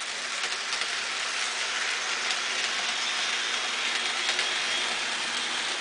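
Model train running along the layout's track: a steady whirring hiss from the electric locomotive and its wheels on the rails, with a faint steady hum underneath.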